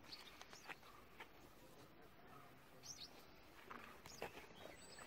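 Near silence: faint outdoor ambience with a few short, high, falling bird chirps scattered through it.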